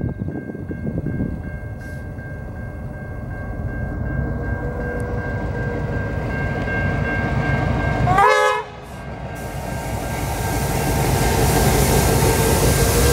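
A Victorian T class diesel-electric locomotive and its train approaching, the engine's rumble growing louder. About eight seconds in the locomotive sounds a brief horn blast. After that, the rushing noise of the carriages passing close on the track grows louder.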